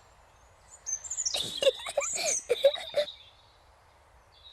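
Cartoon birds chirping: a quick run of short, high, falling calls over a soft background hum.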